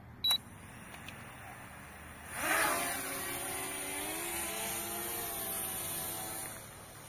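A short high beep, then the L900 Pro SE MAX quadcopter's brushless motors and propellers spin up with a rising high-pitched buzz as the drone lifts off. The buzz holds steady for about four seconds and drops away near the end.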